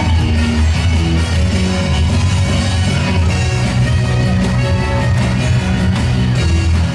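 Loud pop-rock dance music with a heavy bass line, played over the arena's sound system for a cheerleading dance routine.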